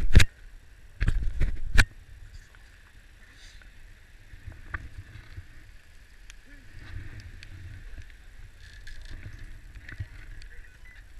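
Knocks and bumps on a helmet-mounted camera in the first two seconds, then a quiet, steady low rumble on the microphone.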